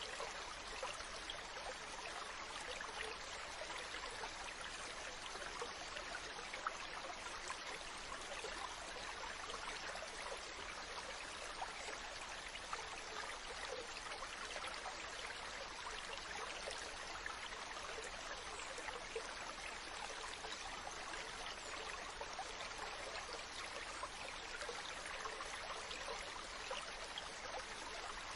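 Water running steadily, a continuous trickling rush with tiny splashes flecked through it.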